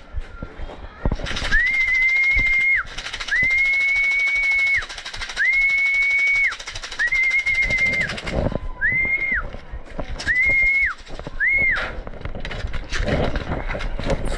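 A person whistling a series of seven notes at the same high pitch, the first four held about a second each and the last three shorter, calling racing pigeons down to the loft. A steady rushing noise runs behind the first half.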